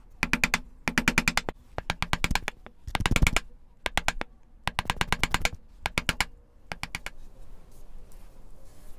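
Hand gouge paring the inside of a wooden weight-relief channel, smoothing out uneven drilled depths, in about nine short strokes of rapid chattering clicks. The strokes stop about seven seconds in.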